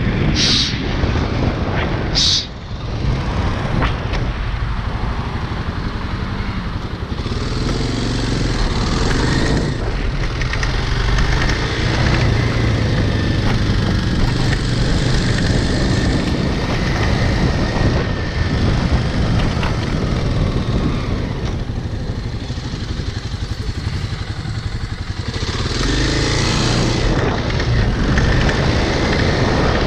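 Motorcycle engine running steadily as the bike rides along, with two short high chirps in the first few seconds.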